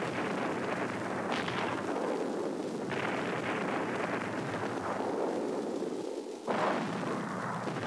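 Artillery barrage sound effects in a war film: continuous noise of guns firing and shells exploding, with fresh blasts about one and a half, three and six and a half seconds in.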